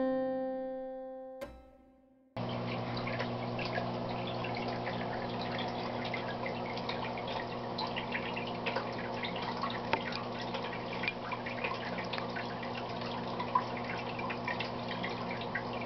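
A last keyboard chord fades out, followed by a single click; about two seconds in, the aquarium's sound cuts in: water from the filter trickling and dripping steadily over a steady low pump hum.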